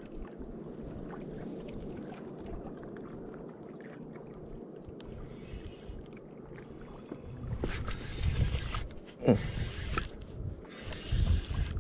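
Okuma Epixor spinning reel being wound in on a hooked fish, with faint irregular ticking from the reel. Gusts of wind and water noise around a small outrigger boat come in twice in the second half, with a short sharp falling sound between them.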